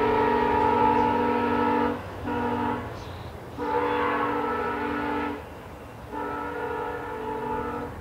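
Multi-tone air horn of a VIA Rail GE P42DC passenger locomotive sounding a sequence of blasts as the train pulls away: a long blast ending about two seconds in, a short one, then two more long ones.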